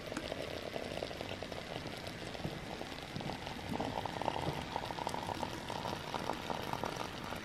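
Hot water running from a samovar's tap into a glass teapot, a steady splashing trickle whose pitch steps up about three seconds in as the pot fills.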